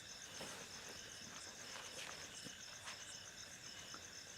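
Crickets chirping faintly: a steady, rapidly pulsing high trill.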